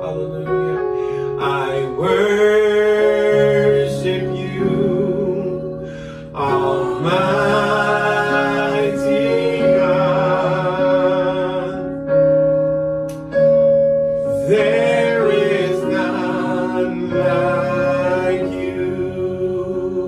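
Gospel worship song: sustained chords on an electronic keyboard under singers, who come in with three long sung phrases, starting about two, six and a half and fourteen and a half seconds in.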